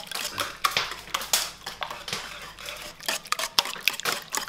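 Wire whisk beating egg yolks in an enamel bowl, its wires clicking and tapping against the bowl in quick, uneven strokes.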